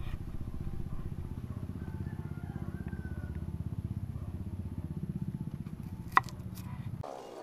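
An engine running steadily, a low throb with a fast, even pulse, cutting off abruptly near the end. A single sharp knock sounds about six seconds in.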